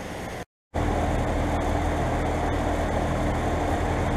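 2003 Bryant 2.5-ton heat pump outdoor unit running in heat mode, its compressor and fan making a steady hum with a constant low tone. A fainter hum drops to a half-second gap about half a second in, then comes back louder.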